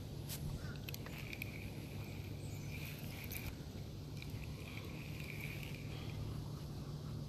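Quiet outdoor ambience: a steady low hum under repeated faint, high, half-second chirping calls, with a few light clicks.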